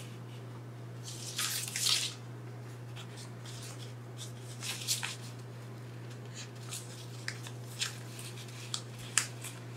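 Soft rustling and light ticks of plastic PET tape rolls and a long unrolled strip of tape being handled, with a longer rustle about a second in and another near five seconds, then scattered small ticks. A steady low hum runs underneath.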